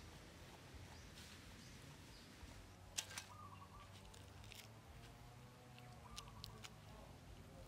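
Near silence broken by a few faint sharp clicks from hands pulling open a frog's body, the loudest about three seconds in.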